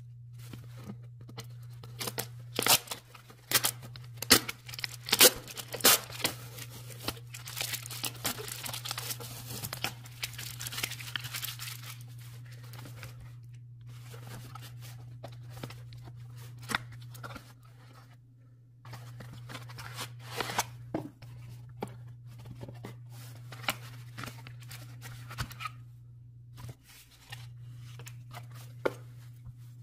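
Plastic shrink-wrap being torn and peeled off a perfume box, with a dense run of crackling and tearing in the first half, then sparser rustling and clicks of cardboard packaging as the box is opened, over a steady low hum.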